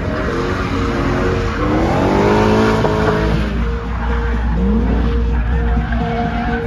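BMW E30 with a swapped-in V8 drifting: the engine revs up and down several times, the biggest climb about two seconds in, over tyre squeal.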